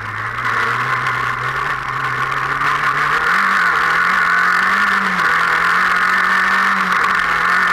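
Off-road racing car's engine heard from inside the cockpit, running hard at speed. The revs climb about three seconds in and then hold high, over a loud steady rushing noise.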